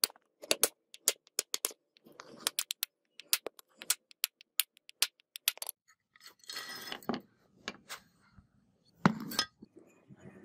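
Hammer blows on a wooden block held against an old electric drill's metal motor housing, driving the rusted field coil out: a quick run of sharp knocks, about three or four a second, for the first half. Then a scraping as the loosened coil slides in the housing, and one heavy knock near the end.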